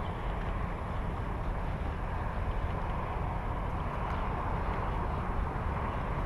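Steady, even noise of highway traffic, with a low rumble underneath.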